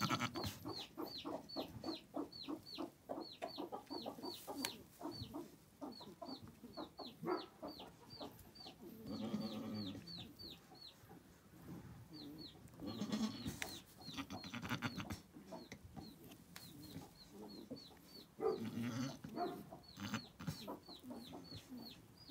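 Baby chick peeping: runs of short, high peeps that each fall in pitch, about three a second. A few longer, lower calls come in between.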